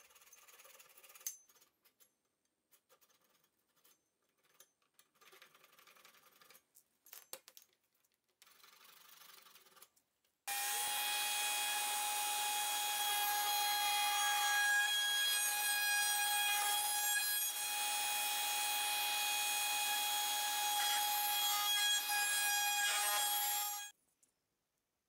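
Soft, irregular scraping of a hand tool on wood, then a router starts abruptly and runs at a steady high pitch while cutting a small hardwood block. It runs for about thirteen seconds and cuts off suddenly near the end.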